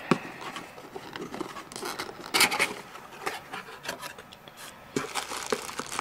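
Hands rummaging inside a cardboard packaging box, with cardboard flaps and packed parts rubbing, scraping and knocking in short, irregular bursts. A louder rustle comes about two and a half seconds in.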